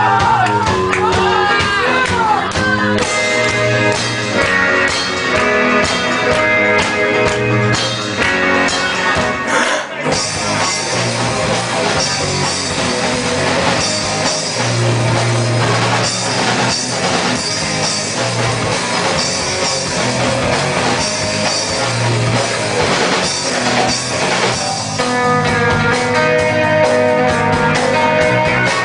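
Rock band playing the instrumental introduction of a song, with guitar and drum kit, before the vocals come in.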